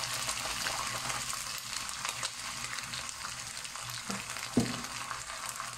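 Shredded meat sizzling in hot oil in a nonstick pan, stirred with a wooden spatula, as oyster sauce and light soy sauce go in. A couple of soft knocks come about four seconds in.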